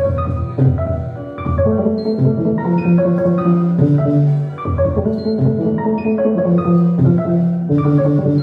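IDM electronic music played live on synthesizers: many short pitched notes in overlapping melodic runs over held bass notes that change pitch every second or so.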